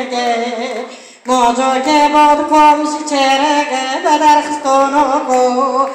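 A woman singing into a handheld microphone: long held notes that waver and bend, with a short break for breath about a second in.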